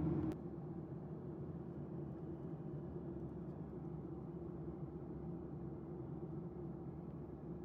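Steady jet airliner cabin drone at cruise, a low even rumble of engines and airflow with a faint steady hum. A louder stretch cuts off a moment after the start, leaving the drone at a lower level.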